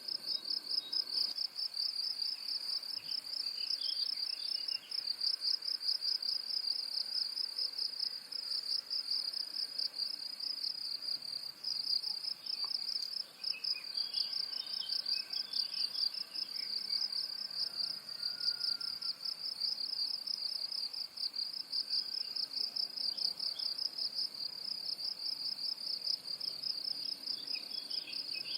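An insect, cricket-like, trilling continuously in a high, rapidly pulsing, unbroken chirr. Faint bird chirps come in a few times, most around the middle and near the end.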